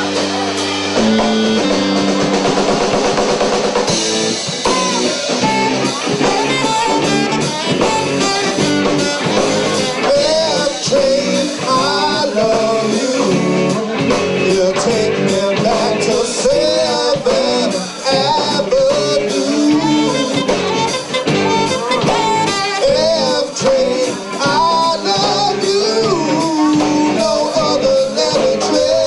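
Live rock band playing: electric guitar and drum kit, with a wavering lead melody over them. It opens on a held chord for about four seconds before the band moves into a busier groove.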